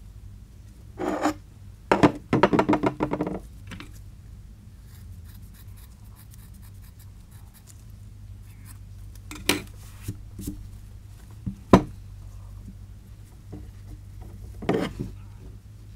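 Fibreglass exhaust heat-wrap tape being handled, pulled from the roll and cut with scissors: scratchy rubbing and rasping, with a longer fast rasping run a couple of seconds in and a few sharp knocks later on.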